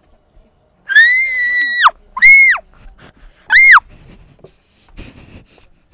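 Three high-pitched shrieks from a person's voice: one held for about a second, then two short ones, each rising, holding and dropping off.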